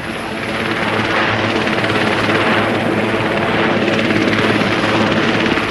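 Large helicopter lifting off and passing overhead: loud, steady rotor and turbine noise with a rapid, even rotor beat, swelling slightly.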